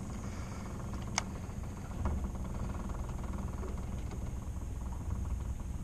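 Boat motor running steadily at low speed with a low hum. A sharp tick comes about a second in and a fainter one about two seconds in.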